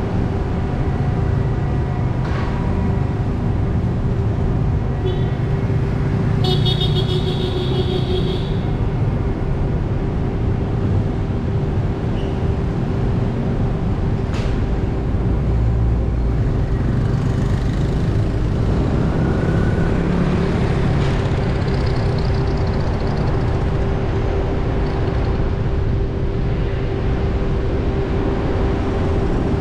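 Engine and tyre rumble heard inside a car driving through city traffic, with a steady hum. A brief high-pitched vehicle horn sounds about seven seconds in.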